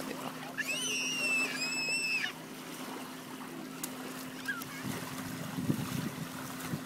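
A child's high-pitched squeal, held for almost two seconds and ending abruptly, over a steady low hum.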